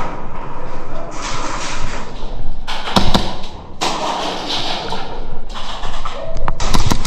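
Close-up movement noise of an airsoft player advancing through a plywood arena: rustling and steps, with a few sharp cracks, the clearest about three seconds in and again near the end.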